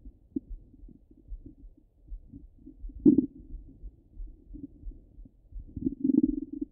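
Stomach gurgles heard through a stethoscope pressed to the belly. There is a short loud gurgle about three seconds in and a longer gurgle near the end, over faint regular low thumps.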